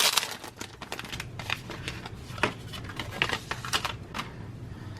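Small doll accessory packaging being opened by hand: a quick, uneven run of clicks and rustles that thins out after about four seconds.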